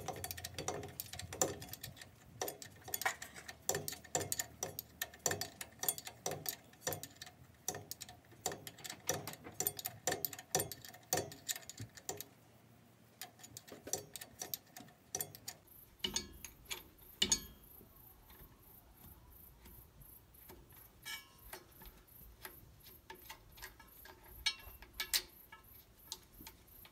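Hand wrench working a U-joint strap bolt loose at a driveshaft's pinion yoke: regular metal clicking about three times a second, which thins out to scattered clicks after about sixteen seconds.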